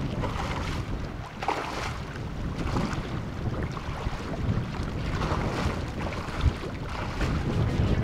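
Strong wind buffeting the microphone with a steady low rumble, over choppy sea water washing and splashing against the shore rocks in surges every second or two.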